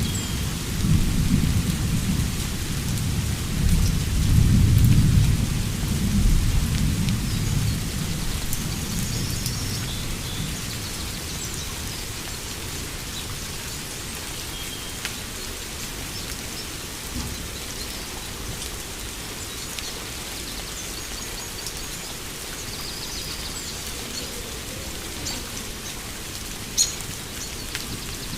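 Thunderstorm: a long rumble of thunder over the first several seconds that fades away, under steady rain. Faint high bird chirps come and go, and there is a single sharp click near the end.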